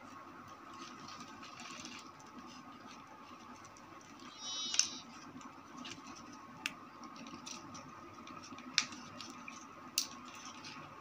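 A brief rattle about four and a half seconds in, then three sharp single clicks, over a low steady hum: small parts being handled during a pedestal fan motor repair.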